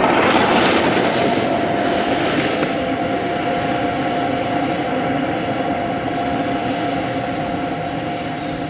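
Radio-controlled model airplane flying over, its motor giving a steady whine with a high thin tone above it. The sound is loudest in the first second as the plane passes, then eases off.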